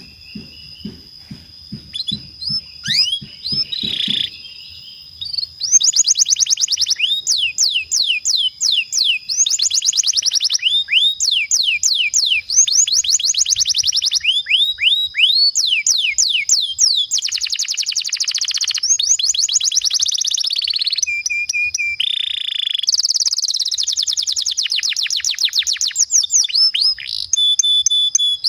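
Domestic canary singing long rolling trills: fast runs of sweeping notes repeated in tight series, over a steady high tone. A faint, low, rapid pulsing is heard in the first few seconds.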